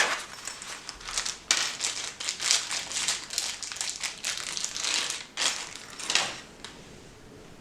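Crinkly packaging wrapper being handled and pulled open in irregular rustling bursts, dying away near the end.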